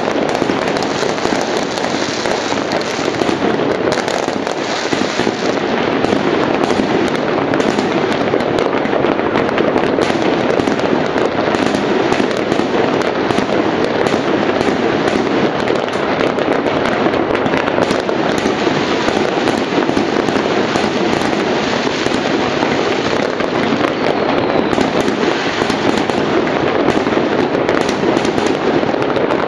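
Many fireworks going off at once over a wide area: a continuous din of overlapping bangs and crackles, with no single burst standing out.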